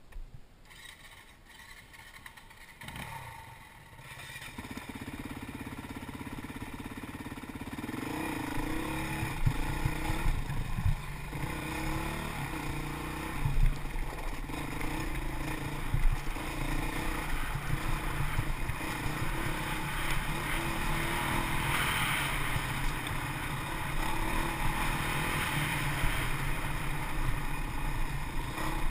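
Dirt bike engine riding single-track trail: low at first, then picking up about four seconds in and revving up and down with the throttle, with wind buffeting the microphone.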